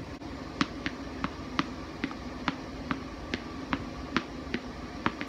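Tennis balls bouncing on a concrete path and being caught while they are juggled off the ground. The result is a steady run of sharp pops, about three a second.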